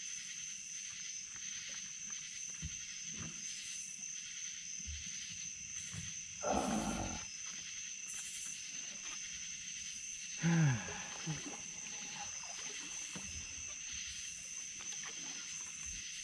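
Steady high-pitched chorus of night insects, with a short rush of noise about six and a half seconds in and a brief low sound falling in pitch about ten and a half seconds in.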